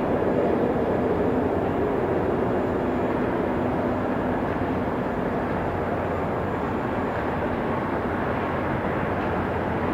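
Outdoor warning sirens sounding during a test, led by a nearby Whelen Vortex R4 rotating electromechanical siren, with more sirens farther off. A loud, steady drone, with faint wavering siren tones running through it.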